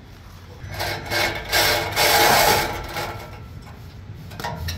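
Handheld power saw cutting into the steel exhaust pipe to remove a factory muffler. It runs in one burst from about a second in, loudest near the middle, then dies away.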